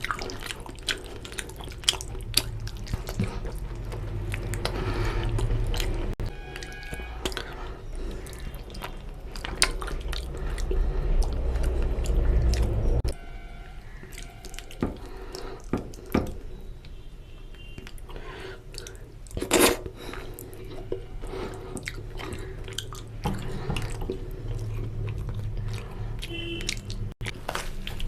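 Close-miked wet chewing and lip-smacking of a person eating curry with puri, with frequent short clicks and smacks. A low steady hum runs underneath and cuts off suddenly about halfway through.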